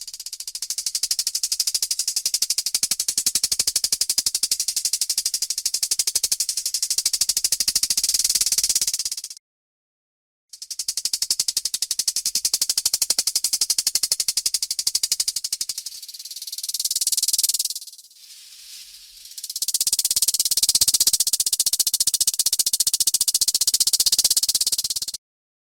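Rattlesnake tail rattle buzzing as a rapid, dry, high sizzle in long bouts, the snake's defensive warning. It cuts out completely for about a second at around nine seconds in and drops to a quieter lull at around eighteen seconds in.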